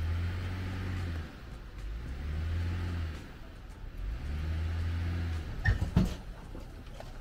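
Tow vehicle's engine revving in three surges of about a second and a half each, straining to move with a wheel chock wedged under a wheel, followed by two sharp knocks about six seconds in.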